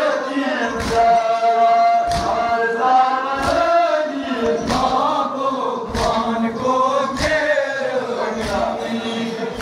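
A crowd of men chanting a Kashmiri noha, a Shia lament, together, with dull thuds about once a second keeping time: the mourners beating their chests (matam).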